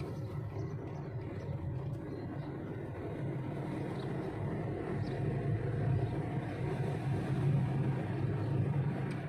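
Car driving along a road, heard from inside the cabin: a steady low rumble of engine and tyres, with a few faint ticks.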